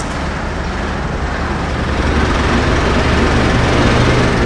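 Car engine and road noise heard from inside the cabin: a steady low hum over a noisy hiss, with the engine note rising slightly and getting a little louder toward the end.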